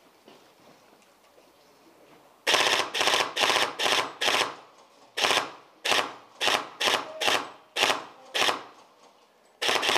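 Airsoft guns firing in short rapid bursts, about a dozen in quick succession starting a couple of seconds in, with a brief gap in the middle.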